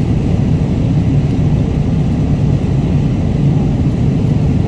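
Steady low rumble of an airliner cabin in flight: constant engine and air noise with no breaks.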